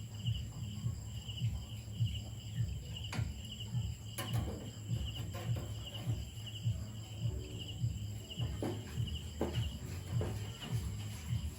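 Crickets chirping steadily, about two chirps a second, with a few scattered light clicks and knocks over a low, uneven rumble.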